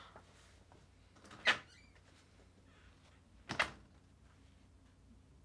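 Two short clunks about two seconds apart, the second a quick double knock, over quiet room tone.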